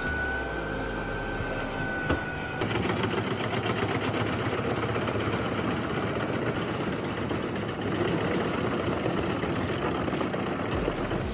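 A machine running with a fast mechanical rattle, preceded by a steady high whine that cuts out about two and a half seconds in, with a click just before.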